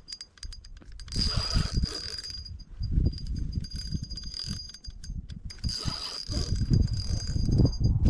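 Spinning reel clicking and whirring under the strain of a large sturgeon on a hard-bent rod, with a thin steady high whine through it and bouts of low rumble.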